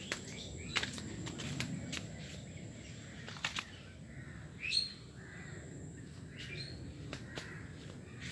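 Birds chirping outdoors, with a louder rising call a little over halfway through. There are scattered light clicks of footsteps on leaf litter.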